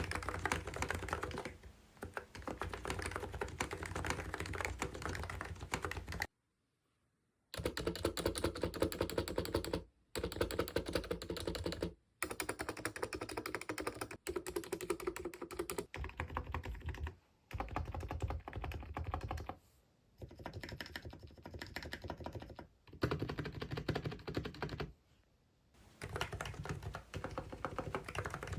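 Fast typing on a COX CNK84W mini keyboard with electro-capacitive (non-contact) switches: a dense stream of key clacks, broken by several abrupt cuts, including about a second of silence roughly six seconds in.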